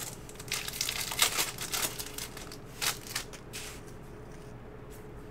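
Trading-card pack wrapper crinkling as a pack is torn open and the cards are pulled out, a run of crinkles and rustles lasting about three seconds that stops short near the end.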